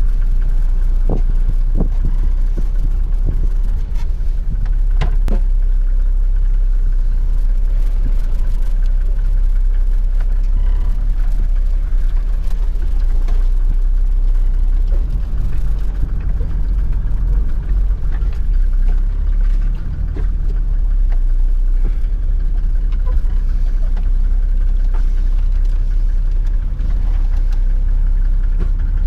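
Mercedes 300GD G-wagen's five-cylinder diesel engine heard from inside the cab, a steady low rumble as it crawls slowly over rock. A few sharp knocks and rattles come in the first five seconds.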